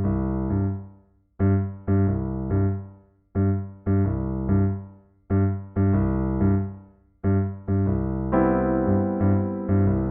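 Pianoteq 9 physically modelled software keyboard playing a steady, repeating pattern of short, detached chords over bass notes, each chord released quickly, with a longer held chord near the end.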